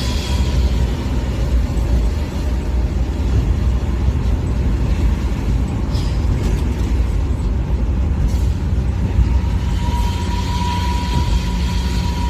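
Diesel locomotive's exhaust rumbling loudly and steadily in a deep, snoring way as the train runs. A thin high tone fades out near the start and returns near the end.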